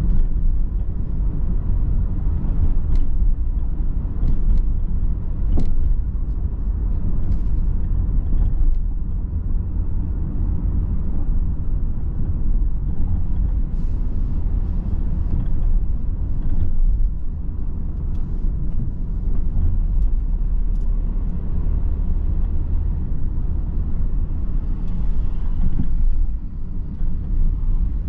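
Car cabin road noise while driving at town speed: a steady low rumble of tyres and engine, with a few faint clicks in the first several seconds.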